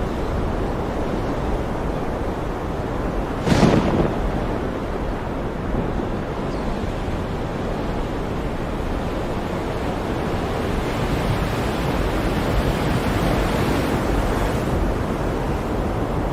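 Sea storm: heavy surf and wind making a continuous rush of noise, with one wave crashing sharply about three and a half seconds in and another surge swelling and fading in the second half.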